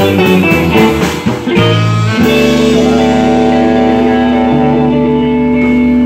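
Live swamp pop band (electric guitar, drums and saxophone) playing the last bars of a song, then holding one long closing chord from about two seconds in.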